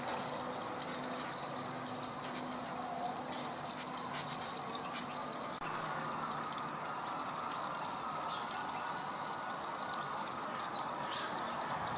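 Water running steadily, with faint high bird chirps now and then.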